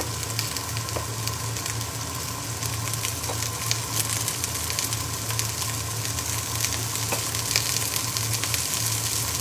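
Diced vegetables sizzling steadily as they fry in a pan, with scattered light taps of a knife chopping garlic on a wooden cutting board and a steady low hum underneath.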